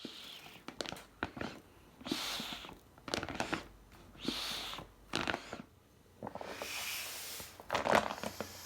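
Homemade motor-driven ventilator pump cycling: a rush of air every two to three seconds, with clicks and knocks from the moving mechanism in between.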